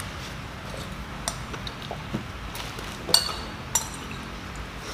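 Metal spoons and forks clinking against ceramic soup bowls while eating: scattered sharp clinks, the loudest a little past three seconds in.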